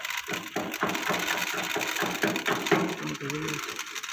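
Quick, irregular clicking and crackling from hand work at a tractor-mounted maize planter's seed hopper and metering units, about four or five clicks a second; a man's voice cuts in briefly about three seconds in.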